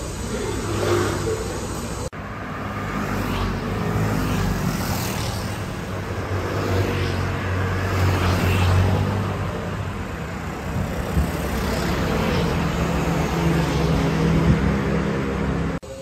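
Street traffic: motor scooters and cars passing, their engines running and accelerating.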